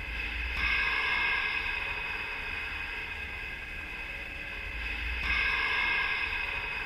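Effects-processed logo audio: a held cluster of high tones over a low hum, swelling louder twice, about four and a half seconds apart.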